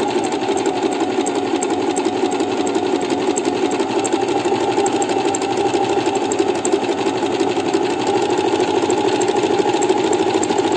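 Singer electric sewing machine running steadily at speed, stitching an overcast edge along a piece of cloth.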